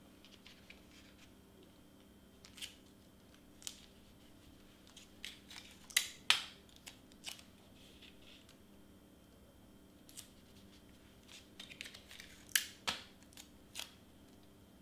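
Cardstock being handled on a cutting mat: pieces sliding, bending and being pressed flat, heard as scattered short rustles and taps, with the loudest around the middle and again a few seconds before the end.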